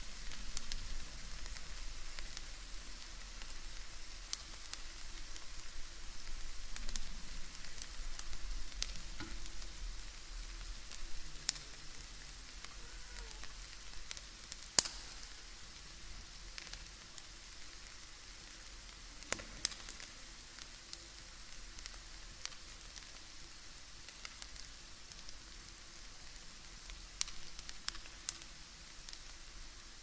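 Bacon frying: a steady sizzling hiss with scattered sharp pops and crackles, growing quieter over the first half.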